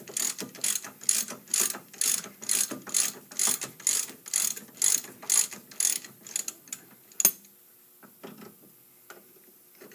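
Hand ratchet and socket spinning out a brake caliper bracket bolt: the pawl clicks in quick bursts, about two or three a second, for some seven seconds, the bolt turning freely. Then a single sharp click, followed by a few fainter clicks.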